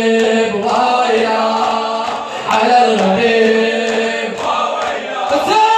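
A group of men's voices chanting a Shia latmiya (mourning lament) in unison, unaccompanied, in long held notes that break off and start again every couple of seconds.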